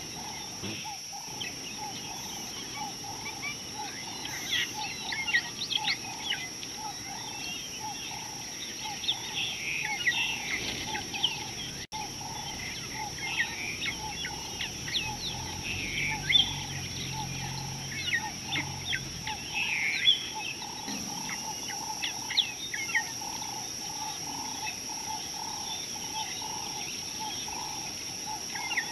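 Wild birds chirping and calling, with quick sharp notes coming in bunches, over a steady string of low piping notes repeated about twice a second and a constant high whine.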